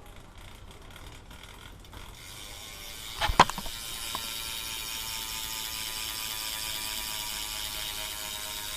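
Shadow Conspiracy cassette hub on a BMX rear wheel freewheeling. After a few faint clicks and a sharp knock about three seconds in, the pawls and ratchet give a steady, fast buzz as the wheel spins.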